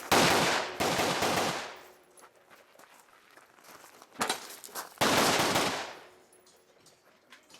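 Rifle shots fired in a stage of an action shooting match: two shots in quick succession, a sharper short crack about four seconds in, and a third loud shot a second later. Each loud shot is followed by an echo that rolls on for about a second.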